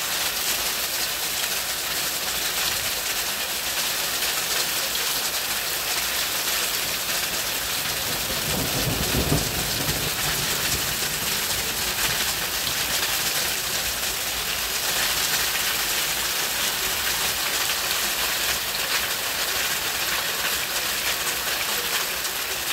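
Hailstones pelting a rooftop deck and shingle roof: a dense, steady patter of countless small ticks over a hiss. A brief low rumble sounds about nine seconds in.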